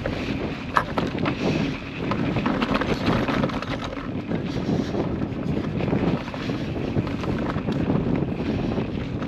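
Wind buffeting the microphone over a steady low rumble, with scattered clicks and knocks.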